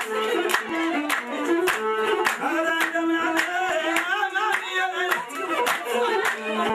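Music with singing and steady rhythmic hand clapping from a group of people, about two claps a second, over held instrumental notes.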